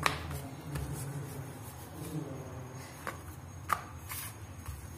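Wooden rolling pin rolling out a ball of chapati dough on a board: soft rubbing and scraping, with a couple of sharp light clicks.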